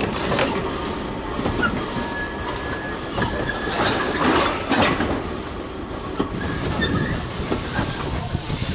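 Southern Railway goods wagons and brake van rolling slowly along the track, their wheels clattering and knocking over the rail joints with a faint wheel squeal. The sound eases a little in the second half as the wagons move away.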